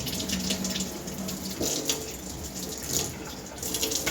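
Tap water running and splashing over a dishwasher spray arm held under it, flushing loosened dirt out of the arm's holes.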